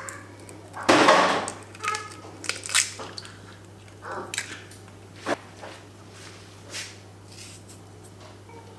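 An egg cracked open and dropped into a plastic tub of cold cooked rice, a short noisy crack-and-splat about a second in, followed by scattered light clicks and taps as the hands keep working over the tub.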